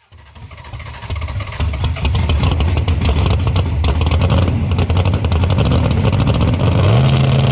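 Drag-car engine of a 1963 Ford Falcon running loudly with a rapid, uneven beat, its pitch stepping up a little near the end as it is given some gas.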